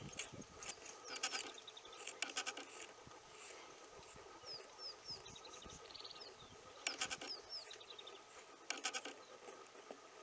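Animal calls: about four short chattering calls, each made of rapid pulses, and a few quick, thin, falling whistles in between.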